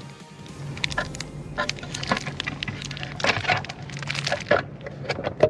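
Irregular plastic clicks and knocks as a NOCO power port inlet and its waterproof flip cover are handled and snapped into place, over a steady low hum.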